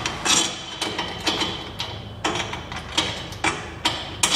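A run of sharp clicks with a short metallic ring, about two a second, from fitting a rotating beacon onto a tractor cab roof.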